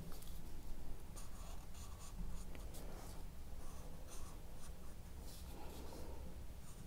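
Thick felt-tip marker drawing stripes on paper: a series of short, quiet, scratchy strokes as each line is drawn.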